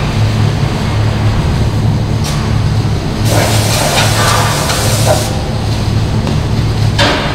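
Steady low machine hum in a metal workshop, with about two seconds of loud hissing noise in the middle and shorter noisy bursts near the start and end.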